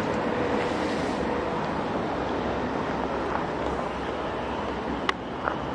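Steady outdoor background noise, an even wash of sound with nothing standing out, broken by a single sharp click about five seconds in.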